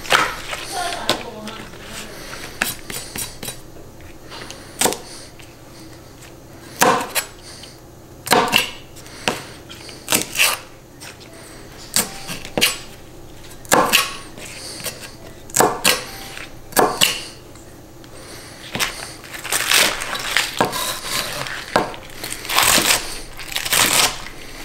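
Kitchen knife cutting green onions on a thin plastic cutting mat: single knocks of the blade through the stalks onto the board every second or two as the root ends are trimmed off, then a run of quicker chopping near the end.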